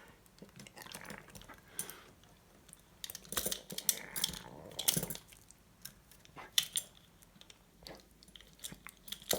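Small metallic clicks and scrapes of a lock pick working inside a handcuff lock, with light rattling of the cuffs, sparse and uneven, a few louder clicks near the middle.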